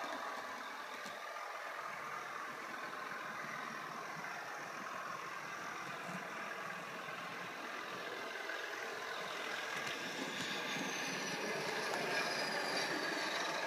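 Sound decoder in a Bachmann Class 37 model locomotive playing its diesel engine sound, heard through the model's small speaker. It runs steadily, swells a little toward the end, and has a high whine that falls in pitch near the end.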